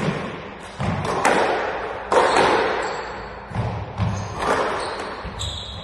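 Squash ball struck by rackets and bouncing off the court walls during a rally: about six sharp thuds, each echoing in the enclosed court.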